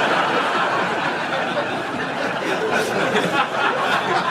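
Studio audience laughing, one long wave of laughter lasting several seconds.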